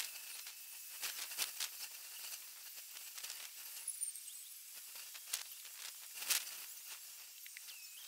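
Outdoor background hiss with scattered sharp clicks and crackles; the loudest click comes about six seconds in.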